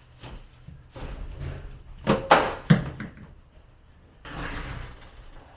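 A few sharp knocks and clunks of things being handled, then a short scraping rustle.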